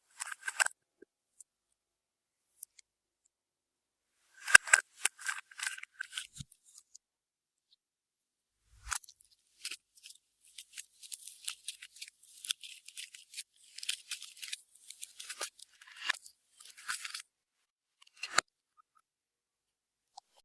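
Clear slime being worked by hand, giving bursts of sharp crackling clicks and pops separated by silent pauses; the crackling is densest through the middle stretch.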